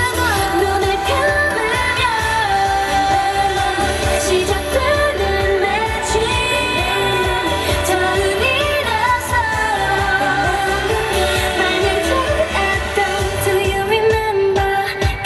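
K-pop song with female group vocals over a steady dance beat, played loud through a stage sound system.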